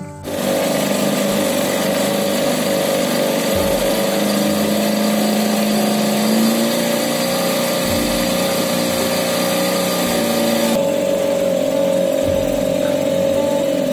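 Small outboard motor of a wooden river ferry running steadily under way. Its upper hiss drops away near the end.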